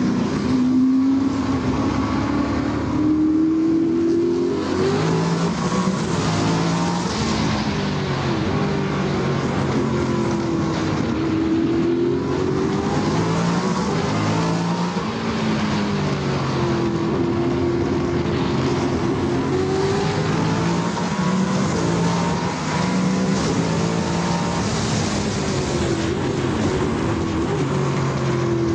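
A Shadow Formula 5000 car's 5-litre V8 racing at full power, heard on board. The engine note climbs and drops again and again as it is run up through the gears and backed off for the corners.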